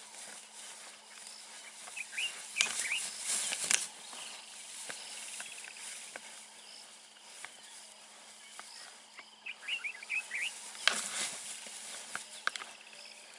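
Two bushbuck rams fighting with locked horns in long grass: bursts of rustling and scuffling about two and a half seconds in and again near eleven seconds. Short bird chirps and a faint steady low hum sit underneath.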